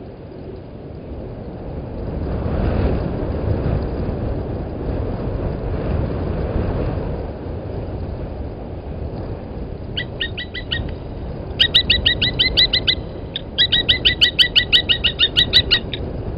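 Blacksmith lapwing calling: from about ten seconds in, three bursts of rapid, sharp, evenly repeated 'tink' notes, about seven a second, over a steady low background noise.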